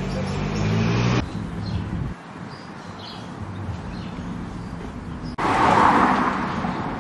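Street traffic: an engine hum rising in pitch cuts off abruptly about a second in, leaving quieter outdoor noise. From about five and a half seconds in, a car passes with a loud swell of tyre and engine noise that fades away.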